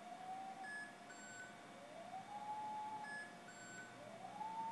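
Bio-Meridian bio-resonance testing machine sounding its measurement tone: three times, about two seconds apart, a tone glides up and then holds steady, the last held longest, each followed by two short higher beeps as a reading is taken.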